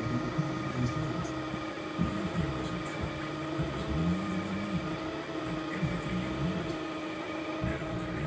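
Kossel delta 3D printer printing: its stepper motors whine in short tones that keep changing pitch as the print head darts about, over a steady hum.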